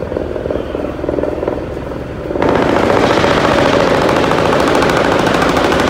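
A helicopter's rotor thrums low and steadily. About two and a half seconds in, loud, sustained rapid automatic gunfire breaks out suddenly and keeps going without a pause.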